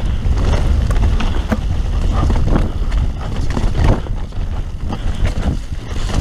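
Mountain bike riding fast down a dirt singletrack: wind buffets the microphone in a heavy, steady rumble, while the tyres roll over dirt and stones and the bike knocks and rattles over the bumps.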